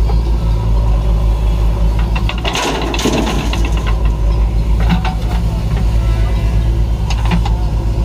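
Diesel engines of a tractor and a JCB 3DX backhoe loader running steadily. About two and a half seconds in, a bucketload of mud tips out into the tractor's trailer with a short rushing clatter, and a couple of brief knocks follow later.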